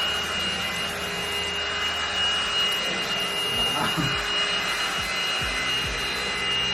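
Black+Decker 3-in-1 cordless stick vacuum running with a steady high whine while its floor nozzle is pushed back and forth over carpet, with a few dull knocks in the second half.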